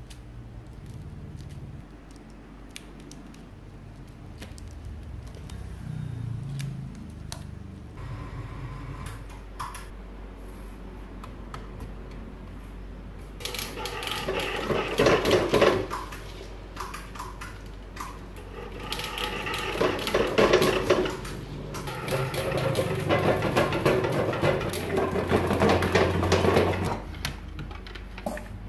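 A bench coil-winding machine running in three spells of a few seconds each, a busy mechanical rattle as it winds copper wire into coils, with quieter handling clicks and taps before it.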